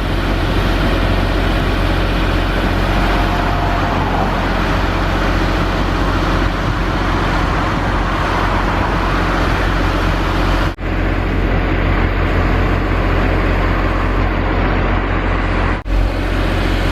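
Steady road traffic noise with heavy low rumble, cut off abruptly for a split second twice near the end.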